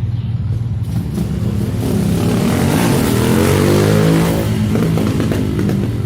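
Chevrolet Omega 4.1's inline-six engine revving as the car pulls away. Its note climbs in pitch and loudness to a peak about four seconds in, then eases off.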